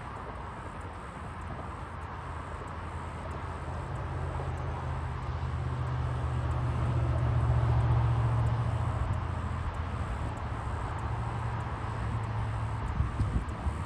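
A distant motor vehicle's engine passing by: a low drone that swells to its loudest about eight seconds in, then fades away. A few light knocks follow near the end.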